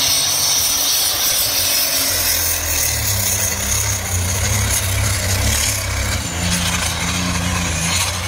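Modified pulling tractor's engine running hard under load as it drags a weight sled down the track, a steady low drone that grows stronger about two seconds in, with a dense hiss above it.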